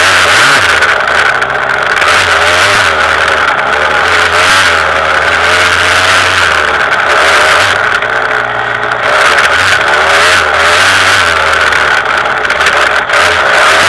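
KTM 200 EXC two-stroke single-cylinder enduro motorcycle engine being ridden hard, loud and close to the microphone, its pitch rising and falling over and over as the throttle is worked.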